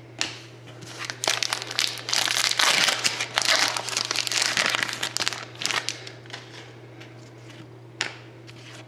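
Plastic foil wrapper of a hockey trading-card pack crinkling as it is torn open and handled, a dense rustle lasting a few seconds that dies down after about six seconds, with a couple of sharp clicks.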